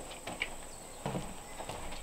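Footsteps on a wooden plank floor: a handful of light, irregular knocks and scuffs as a person steps up and walks across the boards.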